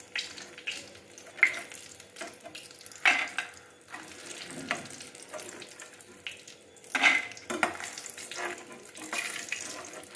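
Oil sizzling in a frying pan, with a spatula scraping and knocking against the pan several times as fried bori (sun-dried lentil dumplings) are lifted out.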